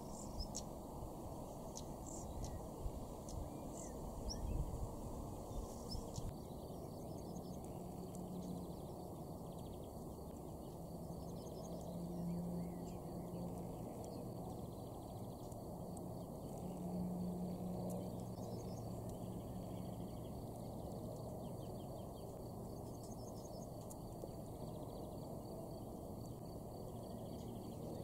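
Faint, short high bird calls, several in the first few seconds and a few more later, over a steady low background hiss.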